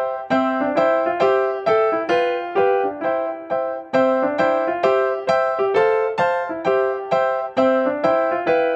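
Background music: a keyboard tune on an electric piano-like sound, with notes struck at a steady pace of about two a second.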